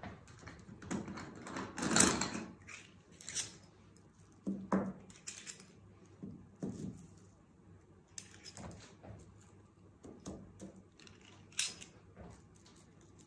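Paper pattern pieces and silk fabric being handled and shifted by hand, an irregular run of rustles and small clicks, the loudest about two seconds in.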